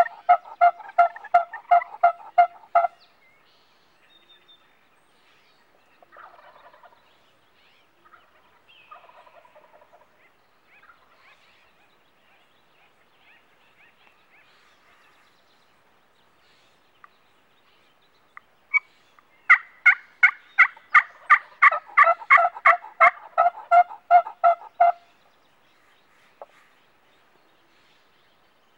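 Wild turkey calls: a long run of evenly spaced yelps, about four notes a second, for the first three seconds. A longer run of about five seconds follows in the second half, with softer scattered calls between them.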